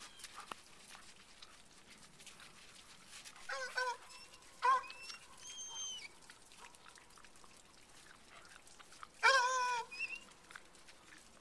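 Dogs barking and yelping in a few short, high-pitched calls, then a longer, louder yelp with a slightly falling pitch about nine seconds in.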